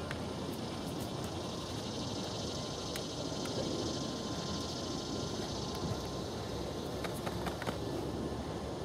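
Steady outdoor background noise: a low rumble with a faint high hiss that swells in the middle, and a few faint ticks.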